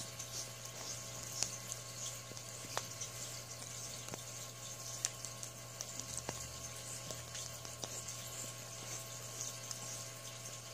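Sphynx kitten licking bare skin: soft, wet, crackly tongue sounds with a few sharper clicks scattered through, over a steady low hum.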